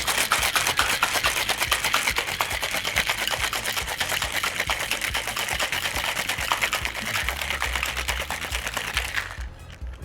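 Ice rattling rapidly inside a Boston shaker (metal tin sealed to a pint glass) as a cocktail is shaken hard, a dense fast clatter that stops shortly before the end.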